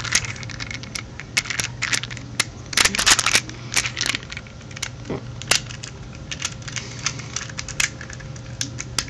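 Rubik's Groove Domino (3x3x2 twisty puzzle) being turned quickly by hand: rapid plastic clicks and clacks as the layers snap round. The clicks come thick and fast for the first few seconds, then thin out to scattered single clicks.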